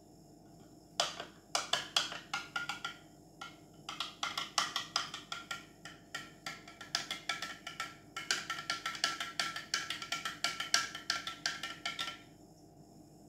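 A spoon stirring chocolate milk in a glass, clinking rapidly against the sides with a ringing note from the glass. It comes in three runs with short pauses about three and eight seconds in.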